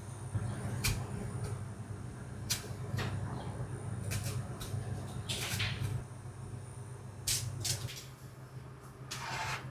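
Kitchen work: a series of sharp knocks and clicks, like cupboard doors and utensils being handled, with two short swishing scrapes. Under them runs a steady low hum that stops near the end.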